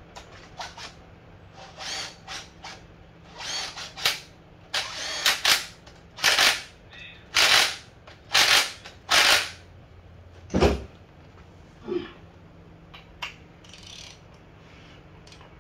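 A power tool run in a string of short bursts, each under half a second, on the bolts of the timing set at the front of a bare LS 6.0 V8 block; the bursts come thickest in the middle, and a thump sounds about ten and a half seconds in.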